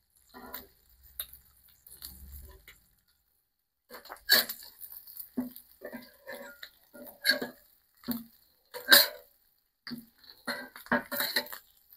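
A metal spatula and tongs knocking and scraping on a cast iron griddle plate as hash browns and bacon are shifted around. The knocks come at irregular times, with sharp louder clanks about 4, 7 and 9 seconds in and a cluster near the end.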